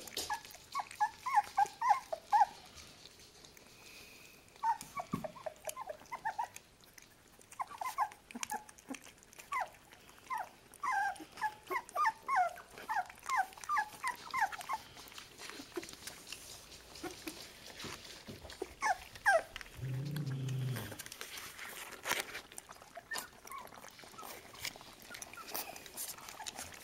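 Young beagle puppies, about three weeks old, squeaking and whimpering in quick runs of short high calls, over wet smacking and lapping clicks as they drink milk from a plastic tub. One short, lower-pitched grunt comes about three-quarters of the way in.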